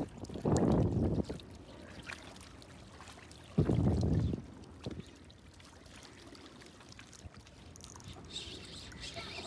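Sea water lapping and sloshing against shoreline rocks, with two louder washes about half a second and three and a half seconds in, and faint trickling near the end.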